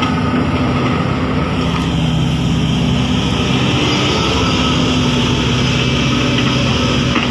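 Sumitomo crawler excavator's diesel engine running loudly and steadily.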